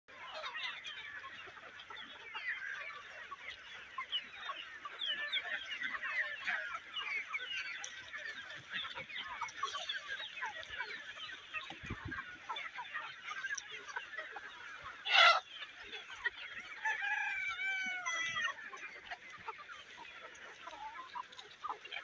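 Chickens calling among dense high chirping that runs throughout. A loud, sharp call comes about fifteen seconds in. Just after it, a rooster crows once for about two seconds.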